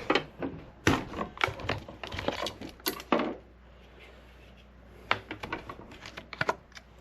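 A quick run of small clicks, knocks and clatters as gear is handled and set down, pausing about three and a half seconds in and resuming near the five-second mark, over a faint steady low hum.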